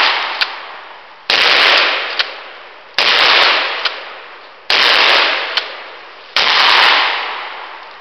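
A Stevens Model 620 12-gauge pump shotgun fires four shots, roughly one every one and three-quarter seconds, each blast dying away in a long echo. A short click follows each shot.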